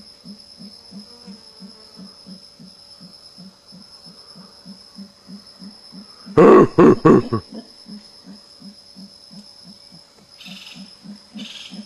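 Howler monkeys calling: a low, rhythmic pulsing growl, about three to four pulses a second, with a loud burst of deep, rough grunts about six seconds in. A steady high insect whine runs underneath.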